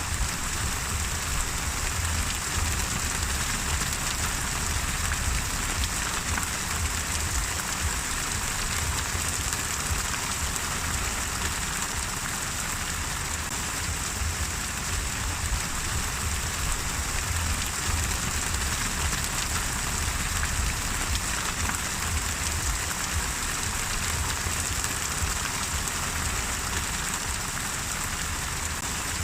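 Steady rain falling and pattering on a surface, even and unbroken, with a low rumble underneath.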